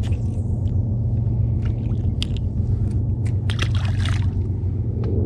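Steady low hum of a bass boat's electric trolling motor running, with a small splash in the water about four seconds in.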